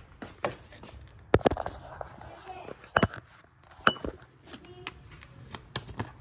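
Pink plastic sippy cup handled on a kitchen counter for juice: a string of sharp clacks and clinks as the cup is knocked down and its lid twisted and pulled off.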